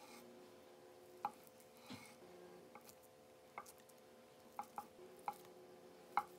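Kitchen knife slicing through a block of feta cheese and knocking on a wooden cutting board, about seven separate sharp taps spaced irregularly, some close together near the end.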